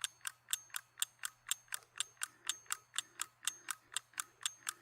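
Clock ticking sound effect, about four even ticks a second, used as a countdown timer for thinking time.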